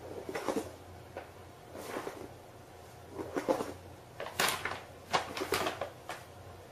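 Paper shopping bag rustling and crinkling as a kitten shifts about inside it, in about five short bursts, the loudest a little past the middle.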